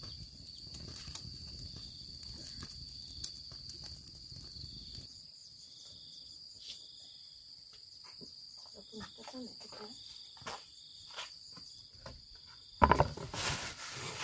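Steady high-pitched drone of insects, with scattered small clicks and taps. Near the end, a loud crinkling rustle as a plastic bag is set down into a plastic basin.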